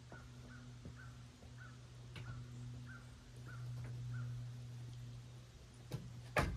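A crow cawing eight times in quick succession, about two caws a second, over a steady low hum, with a sharp knock near the end.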